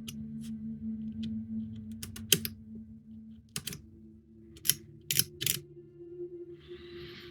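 A hobby knife cutting through thin wooden deck planks: a series of short sharp clicks and scrapes as the blade is pressed and drawn across, with a brief scrape near the end.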